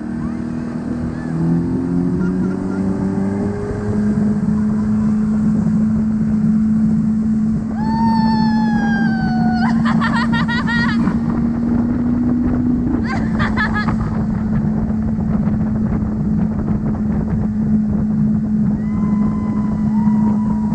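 Motorboat engine speeding up over the first few seconds, then running steady at speed. A voice calls out with a falling pitch about eight seconds in, and there are short cries again around ten and thirteen seconds.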